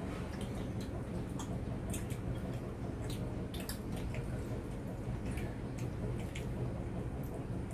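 People eating with their hands: chewing and mouth smacks and fingers picking meat off bones on glass plates, heard as a scatter of small irregular clicks and wet smacks over a steady low hum.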